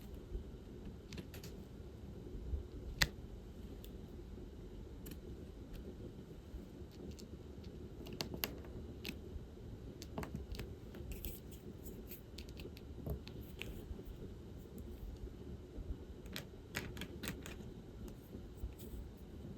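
Light, irregular plastic clicks and taps of diamond painting: a drill pen picking up resin drills from a tray and pressing them onto the sticky canvas, some in quick little runs. A low, steady room hum lies under them.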